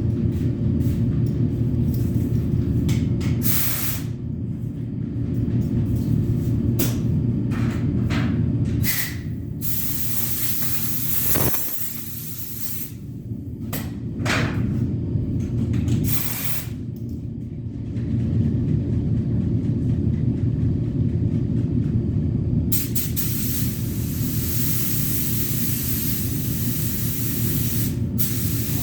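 Paint spray gun hissing in short bursts as primer is sprayed, then hissing steadily for the last several seconds, over a steady low rumble.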